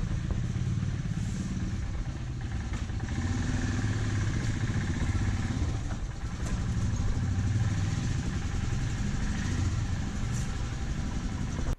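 Royal Enfield Himalayan motorcycle engine running at idle, a steady low note with a few faint clicks.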